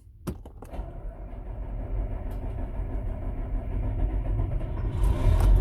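A large farm machine's engine starting: a couple of clicks, then it catches and runs with a steady low rumble that grows louder.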